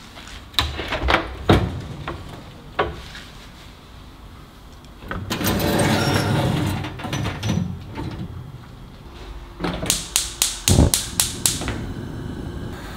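Oven door opened with a few sharp clunks, then the metal wire rack holding the baking tray of bread rolls pulled out with a long scrape of metal on metal. Near the end comes a quick run of sharp, evenly spaced clicks.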